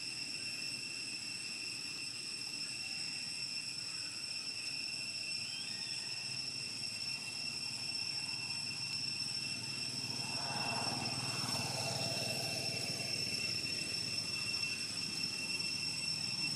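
Steady high-pitched insect chorus. A low engine rumble grows louder through the second half.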